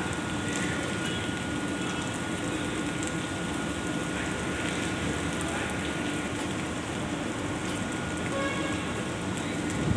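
Steady heavy rain falling, an even continuous hiss.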